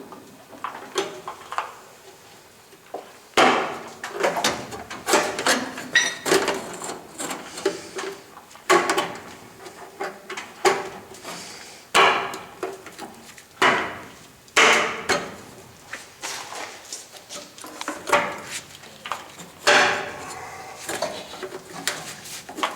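Irregular metal clanks and knocks, some with a short ring, from sheet-metal vent pipe being handled and fitted onto a gas water heater's exhaust. They start about three and a half seconds in and come every second or so.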